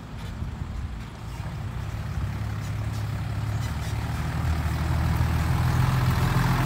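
Heavy dump truck's diesel engine running steadily, getting louder throughout as the truck draws closer.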